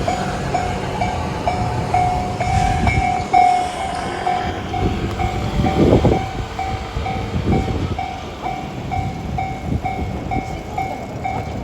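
JR-standard electronic level-crossing alarm ringing steadily, a pitched ding repeating about twice a second, over the low rumble of a freight train, with heavier swells about halfway through.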